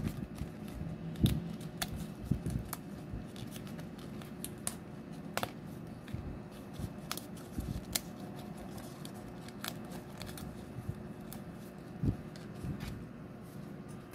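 Die-cut pieces being pressed out of a thin card punch-out sheet, with paper handling: scattered irregular sharp little snaps and crackles, and a few soft knocks.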